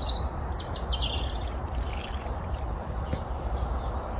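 Birds chirping and singing, several short calls in the first half, over a steady low background rumble.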